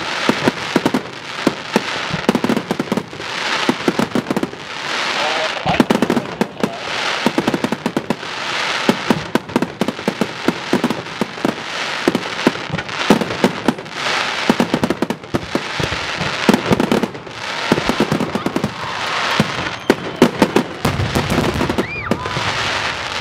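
Consumer firework cake firing in repeated volleys: hissing shots every second or two under dense, rapid crackling from crackle stars.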